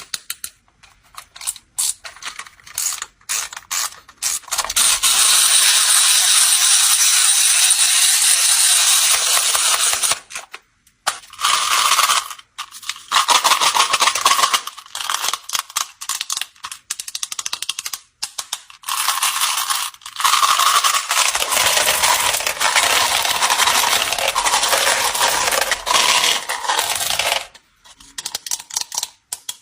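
Small hard candies such as M&M's pouring and clattering. There are scattered clicks, then two long, dense runs of rattling pours.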